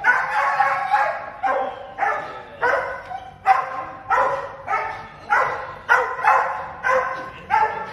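Border Collie barking over and over in excited greeting, about a dozen barks at roughly one to two a second, each echoing off hard walls.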